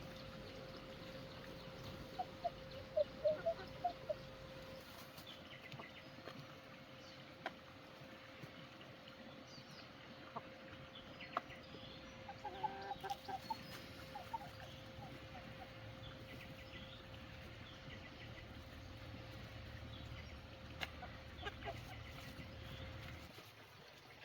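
Chickens clucking in a few short bursts, the loudest about two to four seconds in, over a faint steady tone that cuts off near the end.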